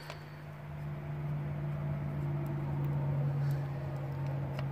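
A steady low machine hum that swells a little about two seconds in, with a few light clicks as the metal blow-off valve is handled on its flange.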